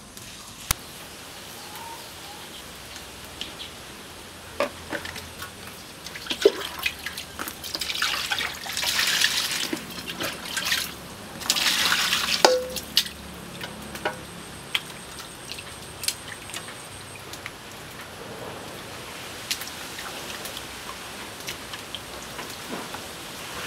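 Hands splashing and rubbing pieces of salt fish in a plastic basin of water, with small splashes and drips throughout. Near the middle, water is poured into the basin from a bowl in two louder stretches.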